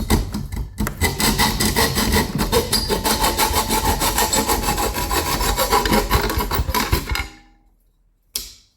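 A hacksaw cutting through a screen-frame length, sawing steadily and stopping about seven seconds in.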